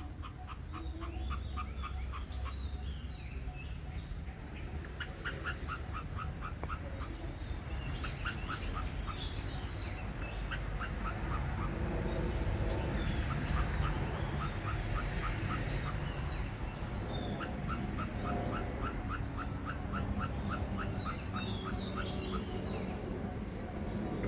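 A treeshrew calling in bouts of short, sharp chattering notes, about three or four a second, repeated again and again. This is the agitated calling of an animal that has seen something or been startled.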